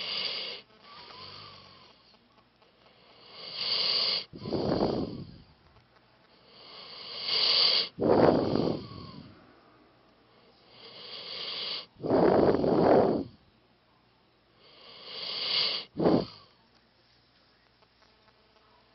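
A pit bull snoring in deep sleep, with five slow, regular breaths about four seconds apart. Each breath is a high, wheezy rasp that builds and stops short, followed by a lower, louder rush of air.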